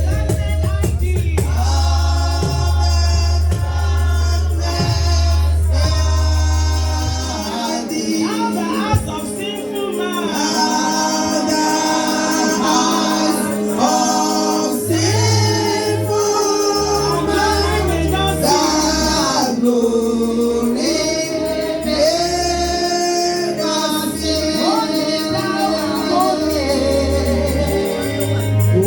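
Gospel music: a choir or group of singers with a heavy bass line and a bright high shimmer, likely tambourine or cymbals.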